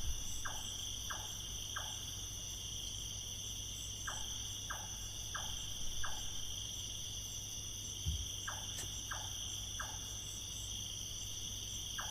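Tropical night chorus of crickets chirring steadily, with another night creature's call of four short, quick notes repeating about every four seconds.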